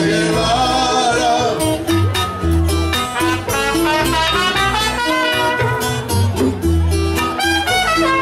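A live Cuban son band playing: a trumpet, a strummed acoustic guitar, a plucked double bass and bongos together, with the bass walking in short steady notes under the melody.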